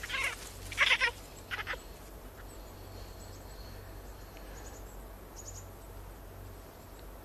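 Newborn Japanese macaque infant crying in distress: three short, high-pitched cries in the first two seconds, then it falls quiet.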